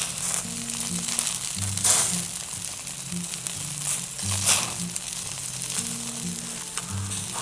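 Wild boar meat frying in a hot pan, a steady sizzle that swells louder three or four times, under background music with a slow bass line.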